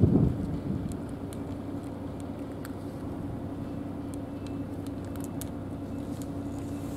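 Wind buffets the microphone for a moment at the start, then an engine runs steadily with a low, even hum. Faint small ticks from the cats eating out of plastic dishes sound over it.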